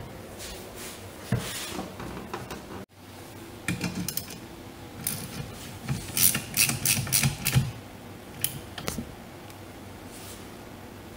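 Ratchet wrench clicking in short quick runs as the wiper arm nuts are tightened down on their pivot shafts, with a few handling knocks in between.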